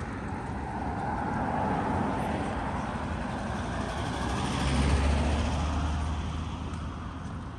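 A road vehicle passing close by over steady city traffic noise, its low engine rumble swelling to a peak about five seconds in and then fading.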